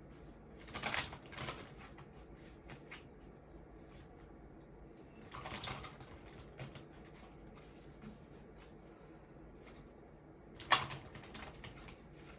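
A deck of oracle cards being handled and shuffled: three brief rustling flurries, the last ending in a sharp tap about ten seconds in, with faint card ticks between.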